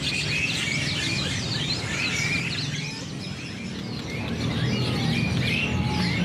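Many caged songbirds chirping and twittering at once, a dense tangle of short overlapping calls, over a low background murmur.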